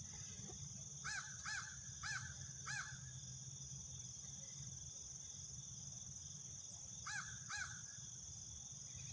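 A crow cawing: four caws in quick succession, then two more a few seconds later, over a steady high drone of crickets.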